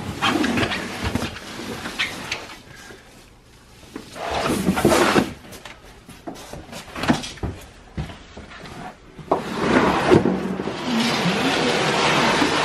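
A rolled, flood-soaked area rug tied with rope being dragged across a wet tile and concrete floor: irregular scraping and rustling with sharp knocks. A steady rushing noise sets in about ten seconds in.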